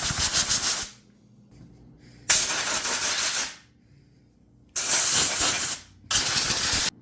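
Blasts of compressed air blowing dust out of a chainsaw's MaxFlow air filter: a hissing blast that cuts off about a second in, then three more short blasts, the last two close together.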